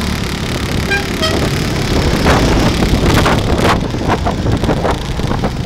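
Motorcycle riding noise: the engine running under wind buffeting on the microphone, with a cluster of short knocks and buffets through the middle.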